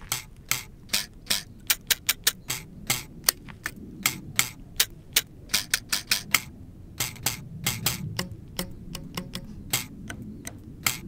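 Stiff barrel cactus spines plucked one after another by a finger, each giving a sharp click, a few a second in irregular runs.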